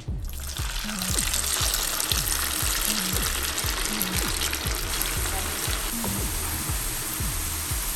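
Food frying in hot oil: a dense, steady sizzle that starts abruptly at the beginning, over background music with a steady beat.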